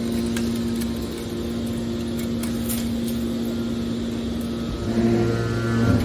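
Baling machinery running with a steady hum. A deeper, louder hum comes in about five seconds in.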